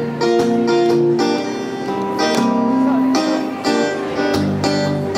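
Solo acoustic guitar strumming chords and letting them ring: the instrumental opening of a song.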